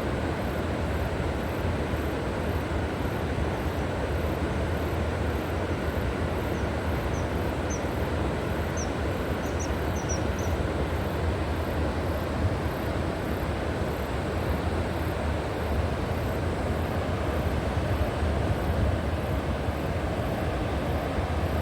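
River water flowing, a steady unbroken rush with a deep rumble underneath. A few brief high bird chirps come in about halfway through.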